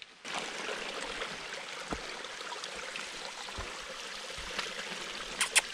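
Small hill burn running over stones: a steady babble of water. Near the end come two brief, sharp, louder sounds.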